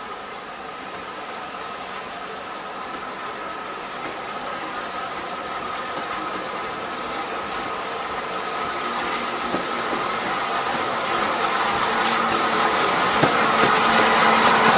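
Rebuilt Bulleid 'Battle of Britain' class Pacific 34053 'Sir Keith Park' approaching with its coaches on curving track. The rumble and rail noise grow steadily louder as it nears, with a hiss of steam rising over the last few seconds as the engine draws close.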